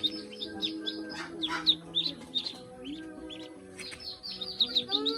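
Ducklings peeping: many short, high, falling peeps, several a second, thinning out briefly in the middle before picking up again.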